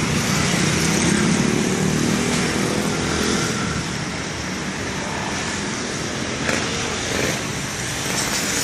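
Road traffic noise with a motor vehicle's engine running close by, its hum strongest in the first few seconds.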